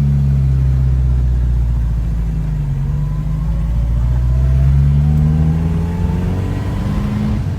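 Ford Escort RS2000 race car's four-cylinder engine pulling on the road: the revs rise steadily for several seconds, then fall sharply at a gear change near the end.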